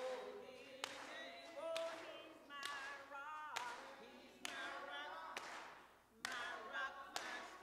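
Women's voices singing together with hand claps on a steady beat, a little over one clap a second. The voices and claps drop out briefly about six seconds in, then resume.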